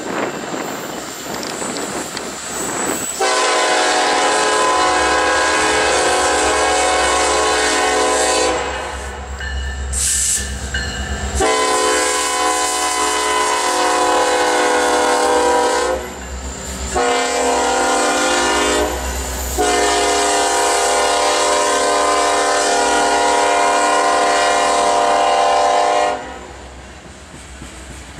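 Lead EMD SD70ACe diesel locomotive of a coal train blowing its air horn in four blasts, long, long, short, long: the grade-crossing signal. A steady low rumble from the locomotives' diesel engines runs under the horn as the train passes.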